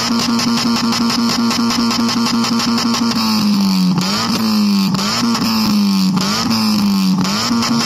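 Mazda MX-5's four-cylinder engine held at high revs through its exhaust, a steady drone whose pitch sags and snaps back up about once a second in the second half.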